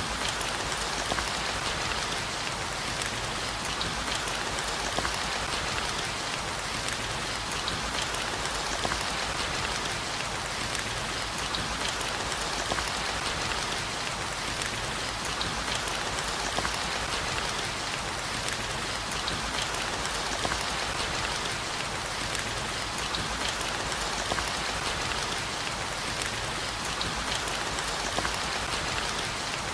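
Steady heavy rain falling on hard surfaces, an even hiss with scattered drop ticks, unchanging throughout.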